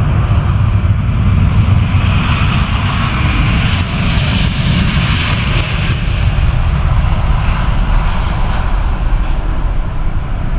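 Rolls-Royce Trent XWB engines of an Airbus A350-1000 at takeoff thrust: a steady deep rumble with a rushing hiss that swells about halfway through as the jet rolls past and then eases off.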